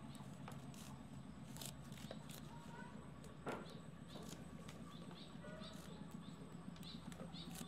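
Faint soft clicks and snaps of Siamese senna (khi lek) leaves being picked from their stems by hand, over a steady low hum, with a few short chirps.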